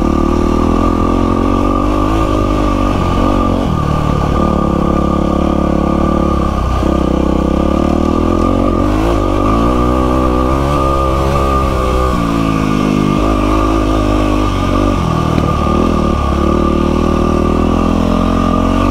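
Yamaha WR450F four-stroke single-cylinder dirt bike engine under way on a trail ride, its revs climbing and dropping back over and over as the throttle is worked.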